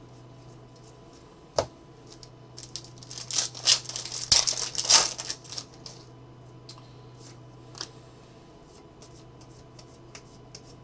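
Stack of trading cards being flipped through and sorted by hand: quick clicks and scraping as the card edges slide over one another, busiest from about three to six seconds in. A faint low hum runs underneath.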